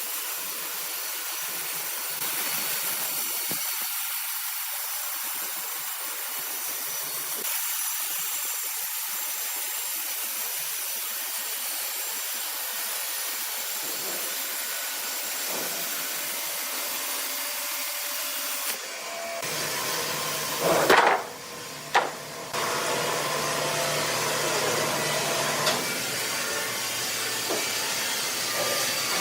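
Sawmill machinery running with a steady hissing noise of saw cutting. About two-thirds in, the sound changes to a lower steady hum, and two loud knocks follow close together.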